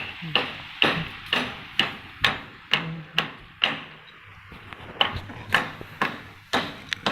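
Hammer blows on shuttering formwork, struck at a steady pace of about two a second, with a short pause about four seconds in.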